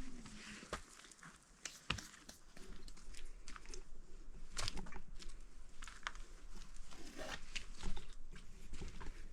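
Footsteps crunching and scuffing over rough cave rock, with irregular sharp taps and scrapes.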